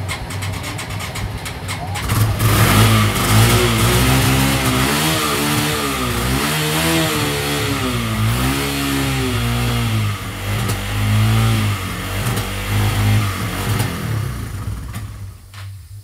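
Yamaha Bear Tracker 250 quad's single-cylinder engine running on its rebuilt carburettor, revved up and down over and over from about two seconds in. It drops away near the end.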